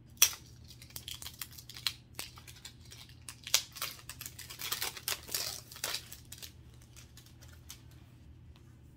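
Plastic packaging crinkling and rustling, with sharp clicks and snaps, as a makeup palette is unwrapped and opened by hand; the handling noise stops about six seconds in.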